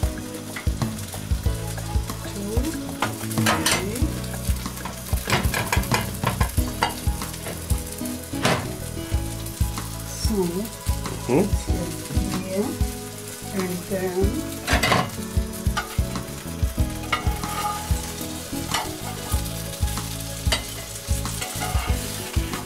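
Steady sizzle from a hot pan of dough dumplings, with frequent clicks and knocks as the dumplings are handled and set down.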